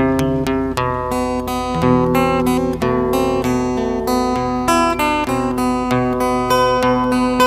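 Background music led by an acoustic guitar, a steady run of plucked and strummed notes.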